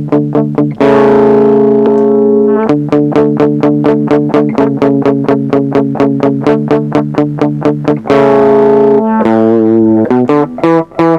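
Electric guitar through a TC Electronic HyperGravity mini compressor pedal: quickly repeated picked notes, about five to six a second, broken by two held chords, one about a second in and one near eight seconds. The compressor is switched on partway through, giving evenly clear note attacks.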